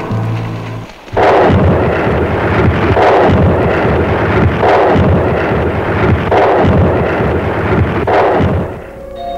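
Loud rumbling noise from a film soundtrack that breaks in suddenly about a second in. It swells in five explosion-like surges about every second and a half and dies away near the end.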